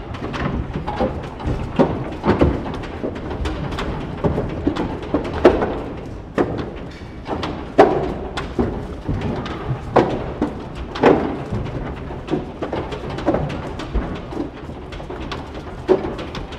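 Holstein cows' hooves clopping and scuffing irregularly on a concrete barn floor as the cows walk, with several louder knocks.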